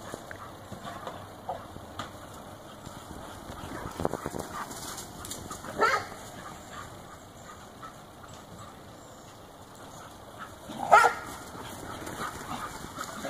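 Small dogs barking a few short times while running, the loudest bark near the end.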